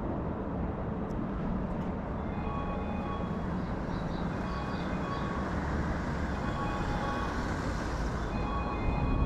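Level-crossing warning bell starting to ring about two seconds in, a repeated electronic ding over steady street noise, signalling an approaching train.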